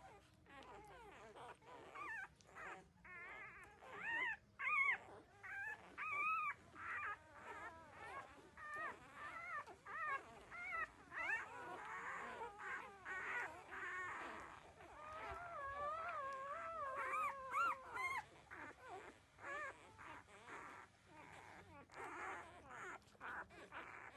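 Litter of 13-day-old puppies whimpering and squeaking as they nurse: many short, high, wavering cries overlapping one another, busiest in the middle.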